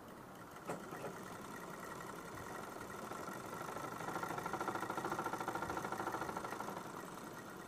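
Ghanshyam sewing machine running and stitching through fabric, a fast, even ticking of stitches. It picks up speed and gets louder about three seconds in, then slows near the end.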